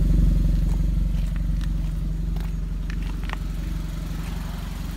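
2016 Jeep Renegade's 2.4-litre four-cylinder engine idling steadily through an aftermarket exhaust, a low even idle that grows gradually fainter. A few faint light clicks sound over it in the middle.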